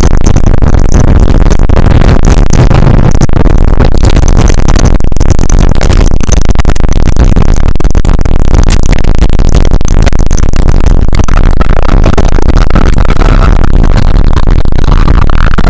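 Very loud, heavily distorted electronic noise music, a dense harsh wash that never lets up.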